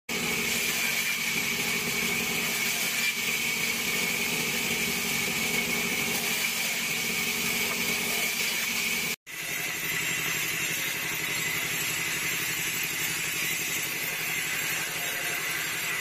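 Band saw running and ripping thin wooden boards for fruit-box side walls: a steady high-pitched whine over a sawing hiss. It cuts off for an instant about nine seconds in, then carries on.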